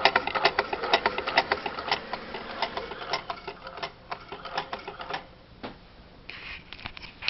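Reproduction Singer 15 hand-crank sewing machine being cranked, its mechanism clicking rapidly at roughly five clicks a second as the bobbin spins. It stops about five seconds in, followed by a single knock.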